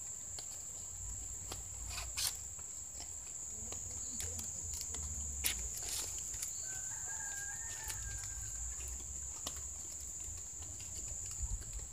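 Coconut palm fronds rustling and crackling in short sharp clicks as they are threaded by hand through a woven palm basket, over a steady high-pitched whine. A faint rooster crow comes about seven seconds in.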